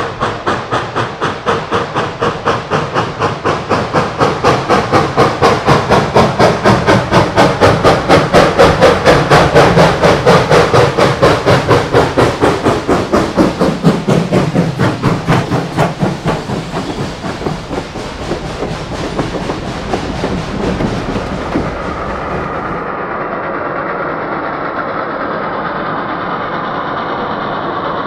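Reading & Northern 425, a 4-6-2 Pacific steam locomotive, working hard with rapid, even exhaust beats from the stack. The beats build to their loudest about ten seconds in and fade as it passes. About 23 seconds in, the sound changes abruptly to a steadier, duller rumble of the train at a distance.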